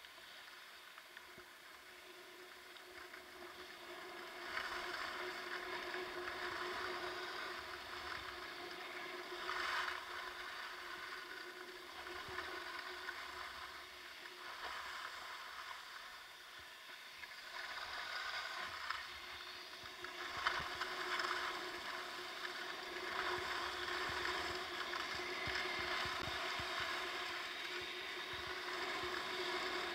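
Skis sliding and scraping over packed, groomed snow on a downhill run, a hiss that rises and falls in loudness through the run.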